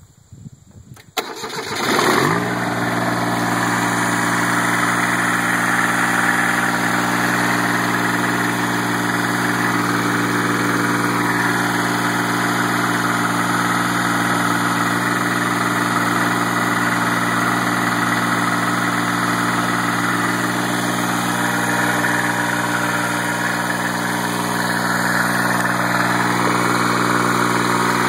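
Ford LGT 14D garden tractor's diesel engine starting on the key: it catches with a short rise about two seconds in, then runs steadily.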